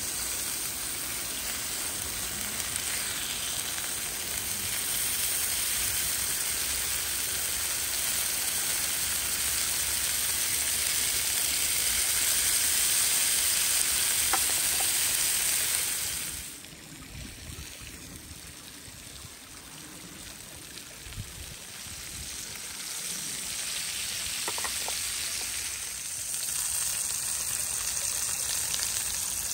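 Beef sizzling on a hot grill pan, a steady hiss that drops off suddenly about sixteen seconds in and builds back up over the next several seconds.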